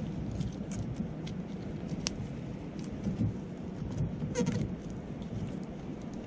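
Wood campfire crackling, with scattered sharp pops and a brief cluster of crackles about four and a half seconds in, over a steady low rush of wind and a murmuring river.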